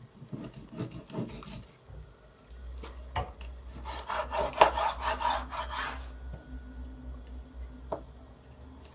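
Kitchen knife cutting a raw salmon steak on a bamboo cutting board, the blade scraping along the fish's backbone and knocking on the board. A few light knocks come first, then a couple of seconds of dense scraping midway, the loudest part, and one sharp tap near the end.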